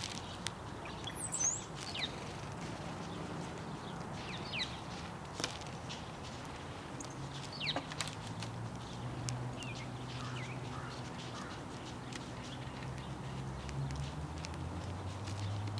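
A few short, falling chirps from small songbirds, scattered through the first two-thirds, with light clicks in between. A low steady hum swells in the second half and is loudest near the end.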